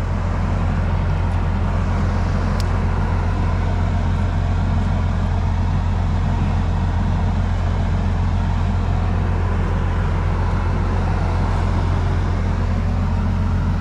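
Engine running steadily, a deep, even drone.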